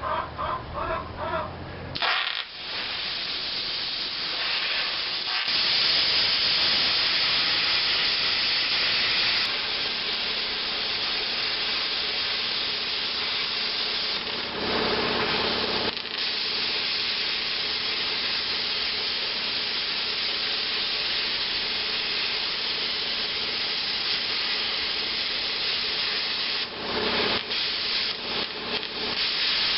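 Hand-held plasma cutter with pilot arc cutting steel plate: a steady, loud hiss of the arc and air jet that runs for about 25 seconds, turning uneven and crackly near the end.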